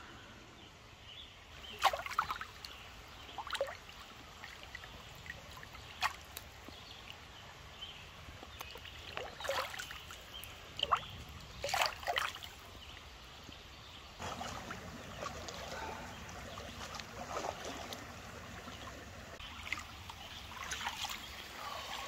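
Water in a shallow stream pool: a dozen or so small splashes and drips scattered over a faint steady trickle of flowing water, as a person moves in the water. The flowing-water background gets a little louder about two-thirds of the way through.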